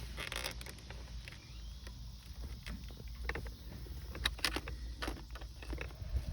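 Scattered light clicks and rustles of hands handling plastic interior trim and a bulb socket, over a steady low rumble.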